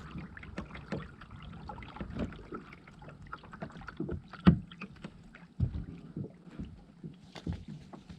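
A kayak being paddled on the water: irregular paddle strokes and splashes with knocks against the hull, the loudest knock about four and a half seconds in.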